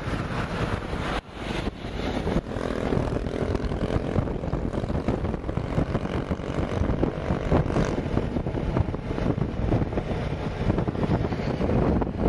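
Motorbike under way at steady speed: the engine drones while wind rushes over the microphone.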